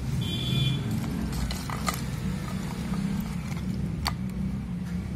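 Steady low background rumble with a few faint clicks, two of them standing out about two and four seconds in.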